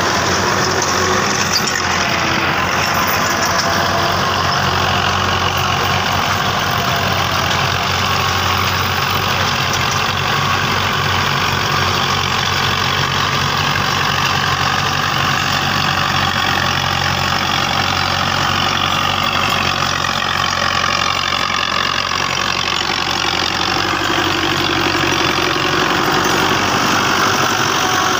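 Fiat 640 tractor's four-cylinder diesel engine running steadily while it pulls a tillage implement through the soil.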